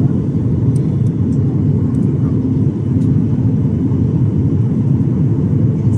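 Steady, deep cabin noise of a Boeing 737 in flight, engines and airflow heard from inside the passenger cabin.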